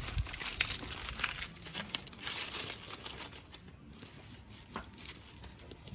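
Thin dry sticks rustling and snapping as they are handled and pushed into a small wood-fired clay stove, with the fire crackling; a dull knock at the start.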